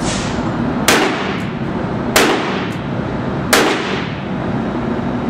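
Three handgun shots, evenly spaced about a second and a half apart, each ringing out with a short echo off the range walls.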